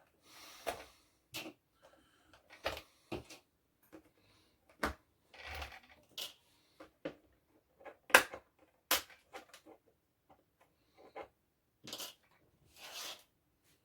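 Hands unpacking an RC truck from its box: irregular plastic clicks, taps and knocks with a few short rustles of packaging. The sharpest knock comes about eight seconds in.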